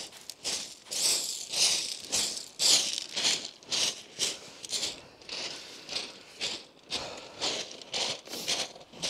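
Footsteps crunching on shingle pebbles, in a steady walking rhythm of about two steps a second.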